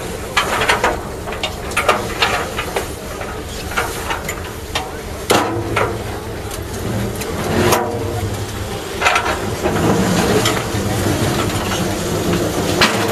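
Irregular metallic clanks and knocks of a metal ship's gangway being handled and lowered onto the quay, over a steady low hum of the ship's engine.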